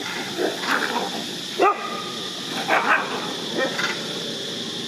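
Dogs barking in short bursts while facing off with a troop of macaques: about five sharp calls, the loudest about a second and a half in. A steady high-pitched hiss runs underneath.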